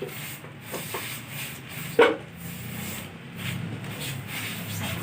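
Metal engine parts being handled during a teardown: light scraping and clinks with one sharp knock about two seconds in, over a low steady hum.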